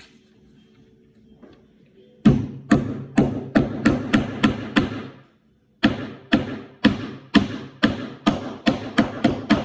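Hammer driving a nail into the wood of a birdhouse kit: quick, even blows, about three a second, starting about two seconds in, in two runs with a brief pause between them about five seconds in.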